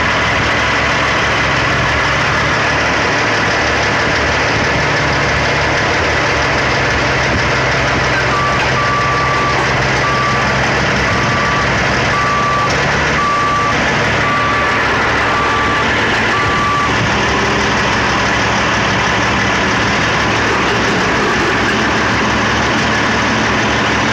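Heavy truck and skid steer loader engines running steadily, with a vehicle backup alarm beeping at a single pitch roughly once a second, starting about a third of the way in and stopping about two-thirds through.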